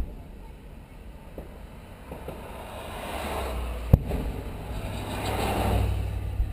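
A car driving past, its engine and tyre noise building over a few seconds and then easing off. A single sharp bang sounds about four seconds in.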